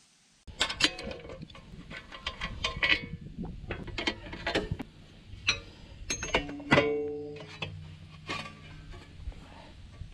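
Music with distorted electric guitar and sharp irregular hits, cutting in suddenly about half a second in.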